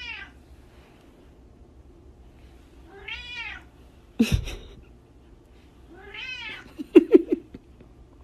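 Domestic cat meowing three times, about three seconds apart, each call rising and then falling in pitch. A sharp knock comes about four seconds in, and a quick run of loud clicks follows the third meow.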